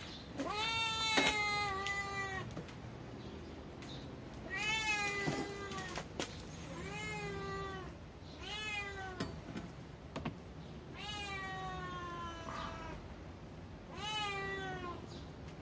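A domestic cat meowing over and over: about six drawn-out meows, each about a second long, coming every two to three seconds.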